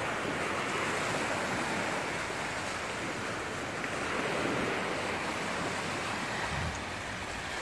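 Small, low waves breaking and washing up the sand: a steady surf wash that swells a little and eases.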